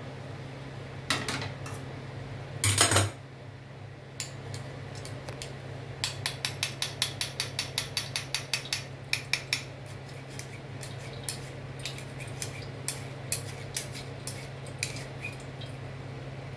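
A metal spoon clinking and scraping against a metal strainer or pot, with a short clatter about three seconds in and a quick run of about four taps a second in the middle, while soup is strained. A steady low hum runs underneath.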